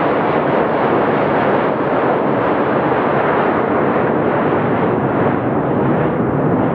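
Sukhoi Superjet 100's two PowerJet SaM146 turbofans at takeoff power: a loud, steady jet roar as the airliner climbs away, growing slowly duller as it recedes.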